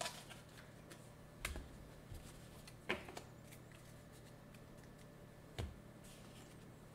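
A few scattered sharp clicks and taps of trading-card packs being handled on a table, over a faint low hum.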